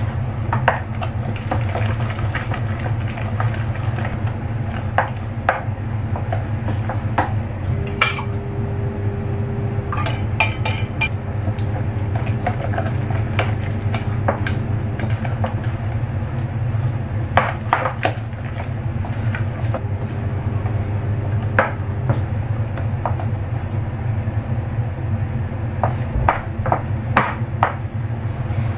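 Spatula stirring and scraping thick, sticky matcha mochi dough in a stainless steel saucepan, with frequent irregular clicks and knocks of the spatula against the pan's side. A steady low hum runs underneath.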